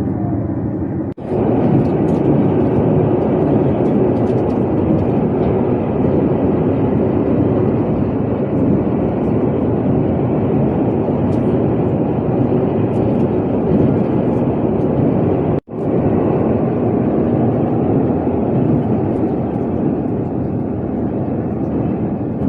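Steady running noise of a Shinkansen bullet train at speed, heard from inside the passenger car, with a few faint clicks. It breaks off for an instant about a second in and again around sixteen seconds in.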